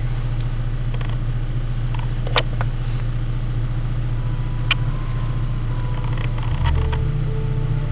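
Car stereo head-unit buttons clicking several times as they are pressed, over a steady low hum inside the car cabin, with a short low thump near the end.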